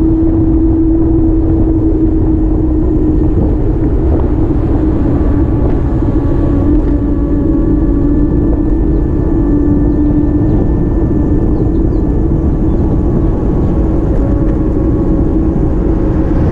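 A vehicle running: a steady droning hum over a low rumble, its pitch sagging slightly.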